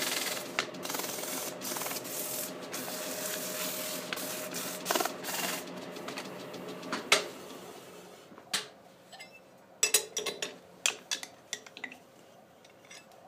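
Sanding a small wooden base as it spins on a wood lathe: a steady rubbing hiss over the lathe's faint hum, which fades away about seven seconds in. Then a scatter of sharp clicks and knocks as the metal chuck is handled.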